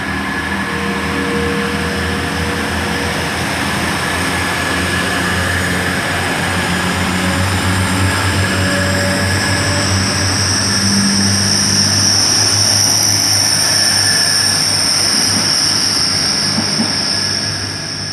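Great Western Railway Class 180 diesel multiple unit pulling out and running past, its diesel engines droning under load. A loud high-pitched squeak grows stronger over the second half, then fades near the end; this unit squeaks worse than a Pacer.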